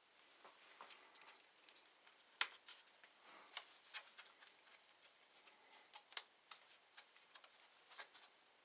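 Faint, irregular small clicks and taps from handling the laptop's parts during disassembly, with a sharper click about two and a half seconds in and another about six seconds in.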